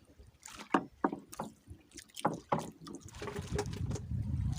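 A run of sharp knocks on a small fishing boat, followed by a low steady rumble from about three seconds in.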